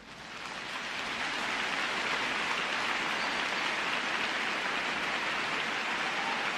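Steady hiss like heavy rain, fading in over the first second or two.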